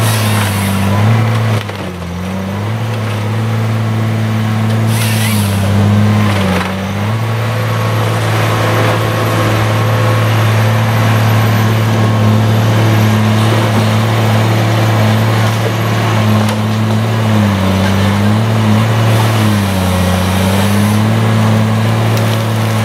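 Tigercat LH845C tracked harvester's diesel engine running steadily, its pitch sagging several times as the hydraulics load it while the Logmax 9000 head grips and works a standing spruce. A few brief bursts of hissing noise come about a second in, about five seconds in and near the end.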